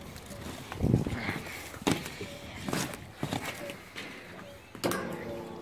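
Coiled rubber drain-flushing hoses being pulled and shifted by hand: a handful of short knocks and rustles, roughly one a second.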